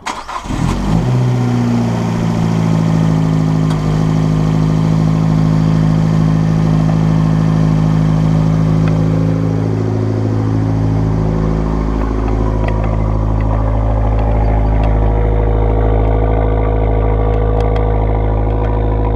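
2012 Fiat Abarth 500's turbocharged 1.4-litre four-cylinder starting: a short crank, catching within about a second, then idling steadily.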